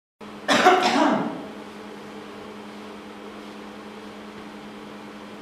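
A short, loud, voice-like burst about half a second in, its pitch bending up and down, then a steady hum with several fixed tones.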